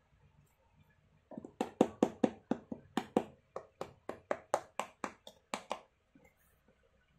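Fingers tapping on the studded firm-ground soleplate of an Ortuseight Catalyst Vision V2 FG football boot. There are about twenty sharp taps, roughly four a second, starting a little over a second in and stopping near the end.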